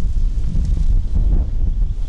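Wind buffeting the microphone: a loud, low, steady rumble.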